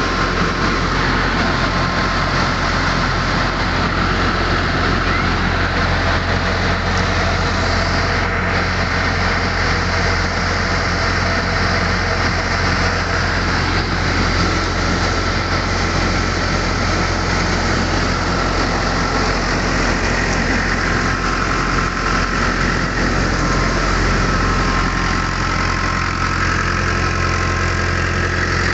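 Powertrac Euro 60 tractor's diesel engine running steadily at about 1000 rpm under load, driving a rice mill through its PTO shaft, with the mill's machinery running along with it in a steady whir.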